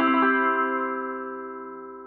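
Closing music: a final chord rings on and fades away slowly.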